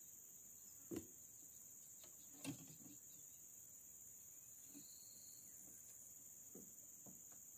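Faint, steady high-pitched chirring of insects such as crickets, with a few soft knocks about a second in and again about two and a half seconds in.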